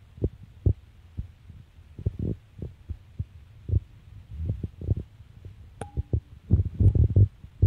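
Irregular low thumps and rumbles on the phone's microphone, unevenly spaced and growing denser toward the end, with a brief thin tone about two-thirds of the way through.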